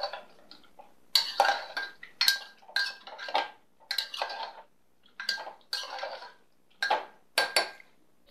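A spoon scraping and clinking against the sides of a small aluminium pressure cooker as pineapple pieces are stirred. About a dozen strokes, some leaving a brief metallic ring from the pot.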